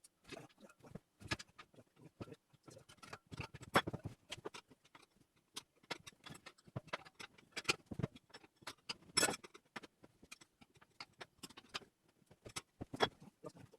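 Irregular clicks, knocks and rubbing of hands working a motorcycle inner tube and tyre onto the wheel rim, pushing the tube's valve stem into place.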